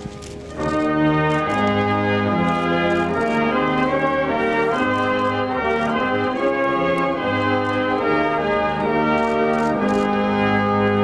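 Military wind band playing a slow piece in sustained chords, brass carrying the tune over saxophones, clarinets and bassoon. The playing breaks off briefly just after the start, then the next phrase comes in.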